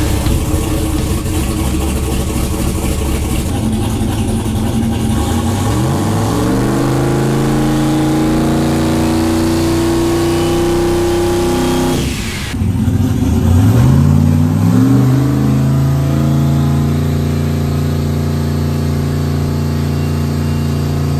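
Turbocharged 5.3-litre V8 running rough and low, then revving up quickly and holding a steady higher speed for several seconds. The revs drop briefly, climb again, hold steady and then cut off suddenly.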